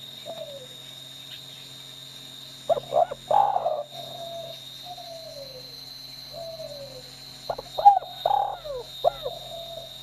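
Spotted dove cooing: two loud call phrases, about three and eight seconds in, with soft falling coo notes between them.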